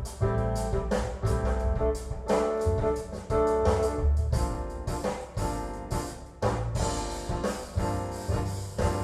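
Instrumental music with a steady beat, pitched notes over regular low thumps, played back through a push-pull tube amplifier and open-baffle loudspeakers as a power-tube sound demo.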